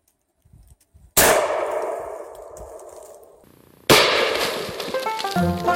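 Shotgun firing a flechette round about a second in, the report ringing out and dying away over about two seconds. A second shot report just before four seconds, then banjo music begins near the end.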